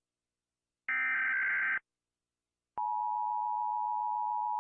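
Emergency Alert System broadcast alert: a burst of the digital SAME header data about a second in, then after a second of silence a steady electronic attention tone starts and holds.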